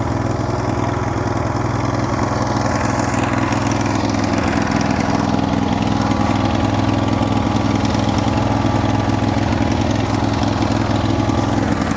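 Band sawmill's engine running steadily, left running to charge its battery.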